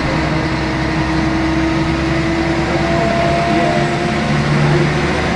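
Scania K113CRB coach's rear-mounted diesel engine and drivetrain running, heard from inside the saloon as a steady drone. A faint higher whine comes in about halfway through.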